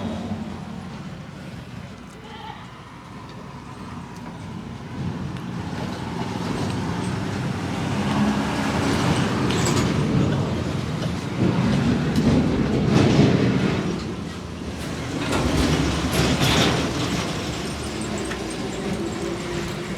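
Road traffic passing close by: vehicle noise swells up and fades away several times, loudest about halfway through and again near the end.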